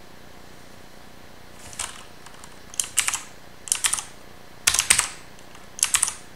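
Keystrokes on a mechanical computer keyboard: short clusters of sharp clicks about once a second, starting a couple of seconds in.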